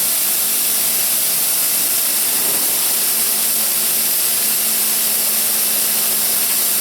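CNC beam drilling machine running during a drilling test: a steady hissing machine noise, with a faint low hum coming in about halfway through.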